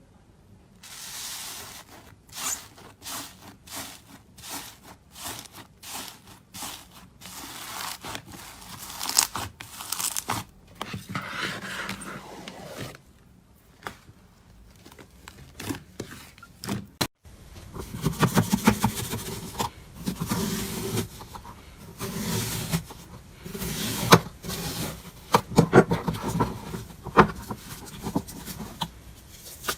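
Slime being handled, poked, squeezed and stretched, making rapid irregular sticky clicks, crackles and pops. About 17 s in the sound cuts to another slime with louder, deeper squelching pops.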